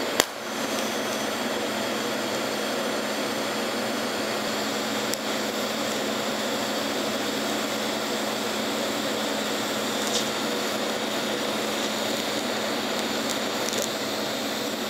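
TIG welding arc laying Monel filler onto a valve seat: a sharp click right at the start as the arc strikes, then a steady buzzing hiss.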